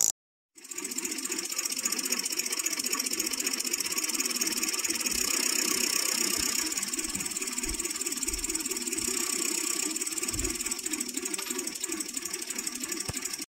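Model V8 engine driven by eight 12-volt solenoids, running steadily: a fast, even clatter of solenoid plungers and switching relays, starting about half a second in.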